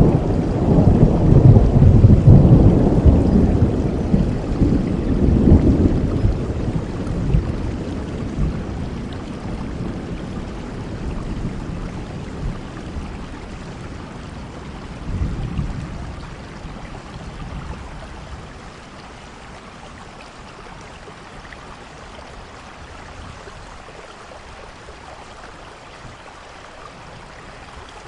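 Thunder rumbling loudly over steady rain for the first several seconds, then slowly dying away, with a smaller swell of rumble about midway, leaving the rain hiss on its own near the end.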